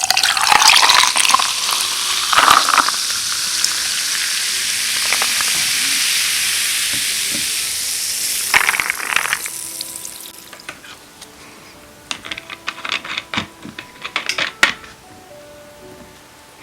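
Trevi sparkling water fizzing hard just after being opened and poured: a loud steady hiss that sets in at once and fades out after about ten seconds, followed by scattered small ticks and clicks.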